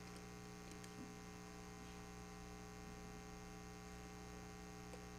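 Faint, steady electrical mains hum through the church sound system, a low buzz made of several evenly spaced tones, with a couple of soft clicks about a second in and near the end.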